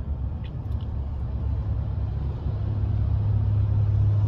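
Road and engine noise inside a moving car's cabin: a steady low rumble, with a low hum that grows stronger about two and a half seconds in.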